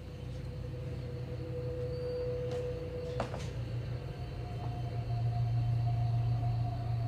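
Ambient soundtrack drone: a low steady hum under a held high tone that steps up in pitch about three seconds in, slowly growing louder.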